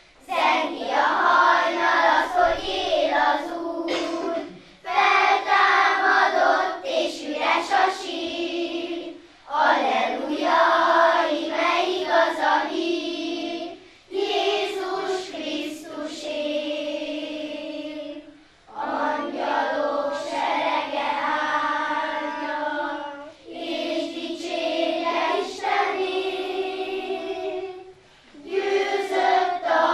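Children's choir of young girls singing, in phrases of about four to five seconds with short breaks between them.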